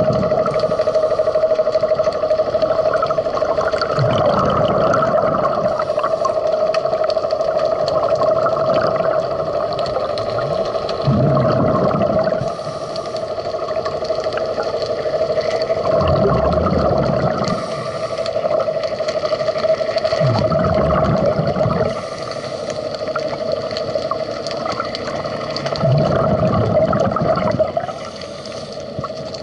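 Underwater sound of a scuba diver breathing through a regulator: a short hiss on each inhale and a rumbling gush of exhaled bubbles about every five seconds, over a steady hum.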